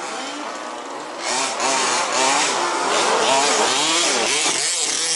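Several 1/5-scale petrol RC buggies' small two-stroke engines revving and easing off as they race, their overlapping pitches rising and falling. The sound grows louder about a second in.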